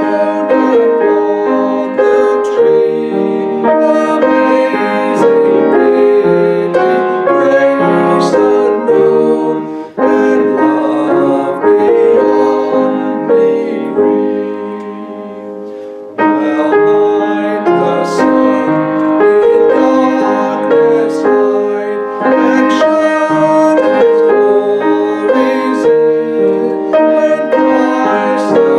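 Piano playing a hymn in slow chords, with a phrase dying away about two-thirds of the way through before the next begins.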